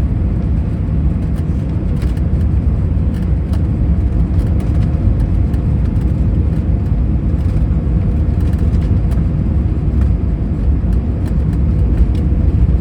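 Steady low rumble of an Airbus A319 airliner heard from inside the passenger cabin, with faint scattered rattling ticks over it.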